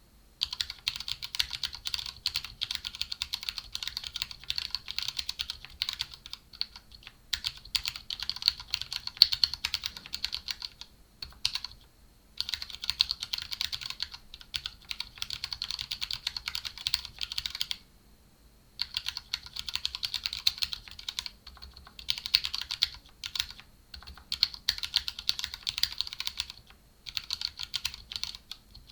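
Fast, continuous typing on a 60% mechanical keyboard with Cherry Red linear switches and Cherry-profile PBT keycaps in a clear polycarbonate tray-mount case, dampened with foam and O-rings. The typing stops briefly three times, about eleven, eighteen and twenty-seven seconds in.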